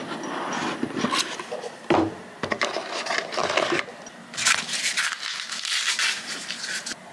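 Cardboard packaging handled by hand: a box lid slid off and the inner cardboard tray scraped and rustled in short irregular bursts. The rustling grows denser about halfway through, then cuts off suddenly.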